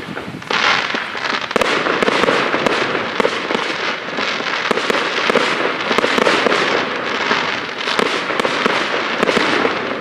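Fireworks display: a dense, continuous run of crackling and popping shell bursts with sharp bangs, starting about half a second in.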